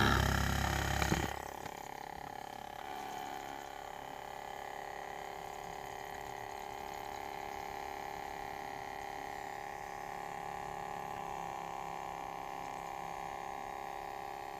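Ematic DVD player making an extremely loud noise that cuts down about a second and a half in, then running on with a steady whirring hum holding several steady tones.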